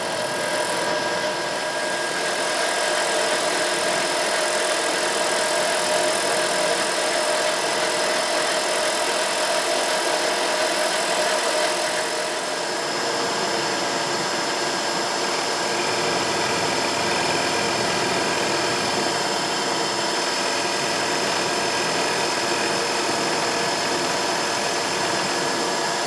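Vertical milling machine running steadily as its end mill takes a slow finishing pass along the edge of a StarBoard plastic block. The tone shifts slightly about halfway through.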